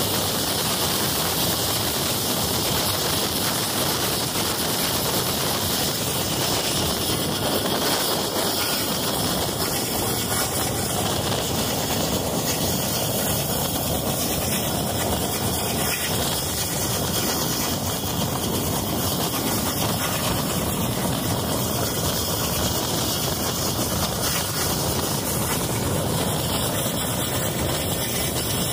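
Train running along the track: a steady, unbroken rumble and rush of wheel and running noise.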